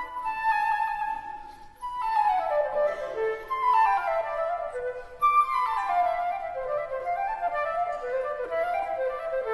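Instrumental background music: a melody of quick note runs that fall in pitch, twice.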